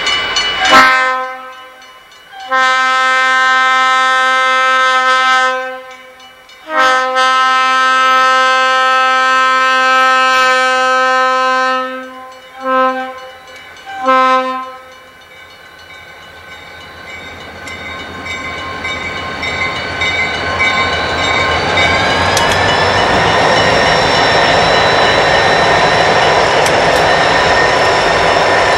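Conrail freight locomotive's air horn sounding for the crossing: a brief blast, two long blasts, a short one and a final blast. Then the train's rumble builds as it approaches, and it passes through the crossing near the end.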